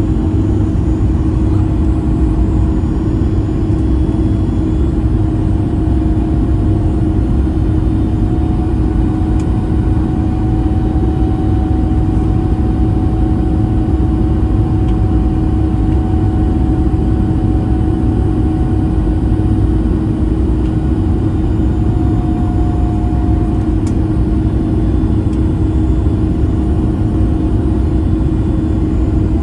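Cabin noise of a Boeing 737 MAX 8 at a window seat beside its CFM LEAP-1B turbofan in flight: a steady loud rush of engine and airflow with a constant hum and a fainter tone that drifts slightly in pitch.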